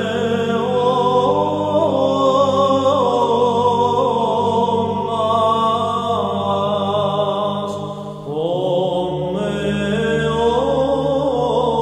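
Byzantine church chant: a voice sings a slow melody over a steady held drone note (ison). About eight seconds in there is a short break, then a new phrase begins over a lower drone.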